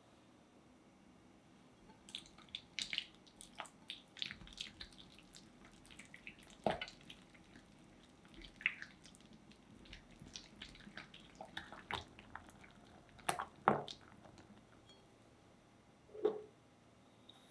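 Silicone-coated balloon whisk stirring softened cream cheese in a glass bowl: irregular wet squishing with light clicks, starting about two seconds in.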